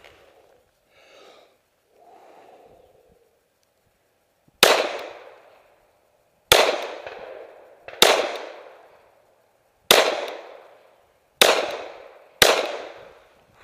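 Six pistol shots at an uneven pace, the first about four and a half seconds in and the last two close together. Each crack is followed by an echo that dies away over about a second.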